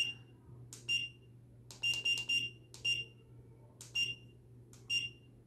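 Push-button keypad presses on a weigh scale controller board, each confirmed by a short, high beep from the board's buzzer with a soft click of the key. About seven beeps, irregularly spaced, with a quick run of three about two seconds in, as a setpoint value is keyed in.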